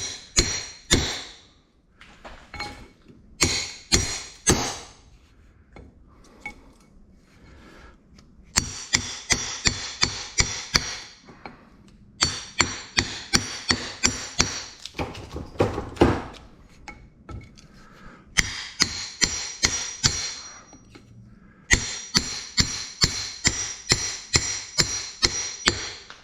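Hammer striking metal in quick runs of blows, about three or four a second, with a bright metallic ring, knocking pieces out of a transformer's steel core and copper windings.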